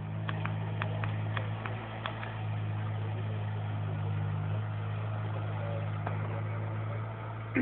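Excavator's diesel engine running steadily. A run of sharp clicks comes over the first two seconds or so.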